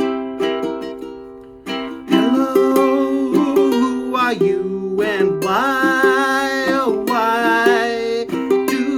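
Ukulele music: a Cordoba ukulele strummed in chords, with a voice singing over it from about two seconds in.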